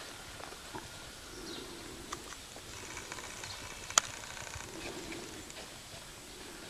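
Faint hoofbeats of a paint horse walking on snow, with one sharp click about four seconds in and a few faint bird chirps.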